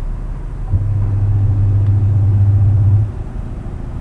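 New washing machine running a low hum that starts about a second in and cuts off abruptly after about two seconds: the drum motor turning in one stroke of its wash cycle.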